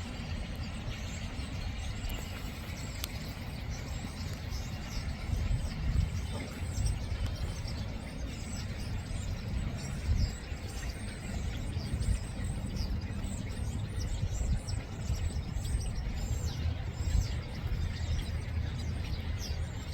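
Starlings calling: many short, high, falling chirps, growing busier after the first few seconds, over a steady low rumble.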